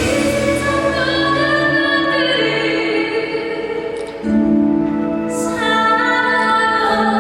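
Female vocalist singing long held notes over instrumental accompaniment, with a brief dip about four seconds in before the next sustained note.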